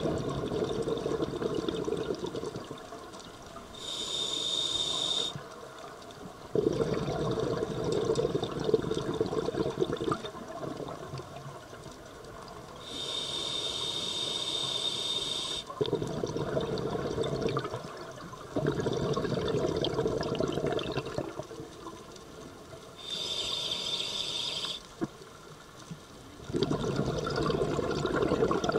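Scuba diver breathing through a regulator underwater: three short high hisses of inhaling through the demand valve, each followed by several seconds of exhaled bubbles bubbling out of the regulator.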